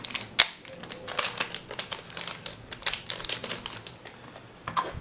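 Hands handling the soldering iron and its parts: a run of irregular small clicks and light crinkling, with one sharp click about half a second in.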